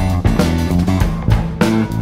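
Instrumental passage of a song with no singing: guitar played over bass guitar and drums, with a steady beat.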